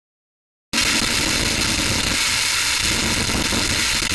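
Harsh static noise, a dense steady hiss across the whole range, that cuts in suddenly out of silence less than a second in and holds at a loud, even level.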